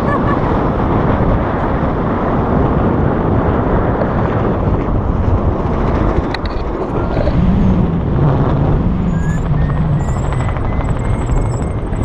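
Steady, loud wind rush buffeting an action camera's microphone in flight under a tandem paraglider.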